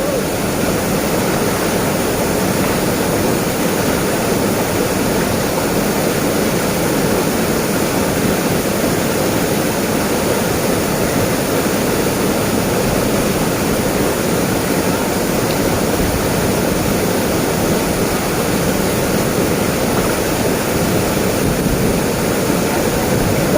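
Waterfall: falling water rushing loudly and steadily.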